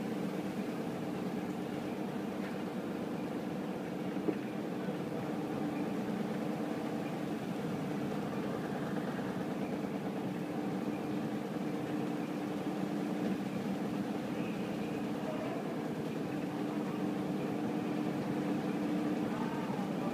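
Samsung front-loading washing machine running, its drum spinning with a steady motor hum. One brief click about four seconds in.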